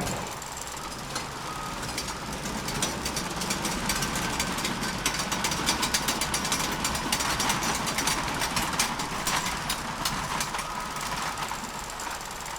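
Rapid, irregular mechanical clicking and rattling over a steady machine hum, starting about a second in and thinning out near the end.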